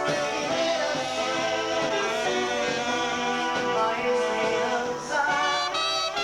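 Live dance band playing a song, a sung vocal over guitar and band accompaniment.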